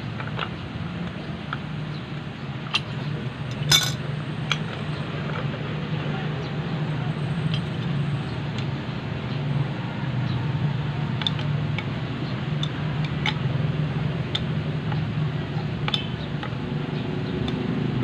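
Scattered metal clinks and taps of a pipe wrench and an adjustable wrench working a threaded metal pipe fitting, with one louder clank about four seconds in, over a steady low hum.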